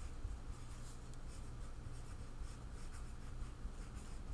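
Pencil writing on lined notebook paper: a quick, irregular run of scratchy strokes over a steady low hum.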